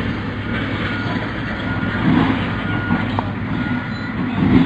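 Heavy earthmoving machinery's diesel engine running steadily as a low rumble, with a faint high beep repeating about once a second.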